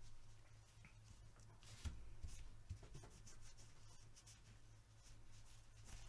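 Faint scratching and rubbing from hands cleaning Tec-9 pistol parts, with a light knock about two seconds in and a steady low hum underneath.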